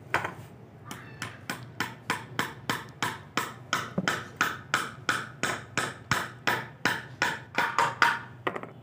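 Hammer driving nails into the wooden stock of a homemade slingshot rifle, fixing the glued slingshot fork in place: a steady run of sharp blows, about four a second, that stops just before the end.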